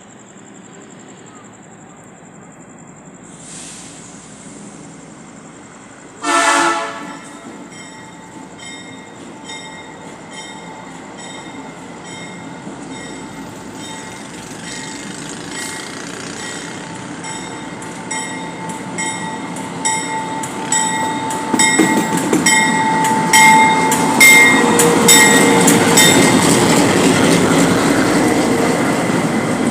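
Train sounding a short horn blast about six seconds in, then drawing closer and passing: a rising rumble with a thin steady wheel squeal and wheels clicking over rail joints, growing loudest near the end.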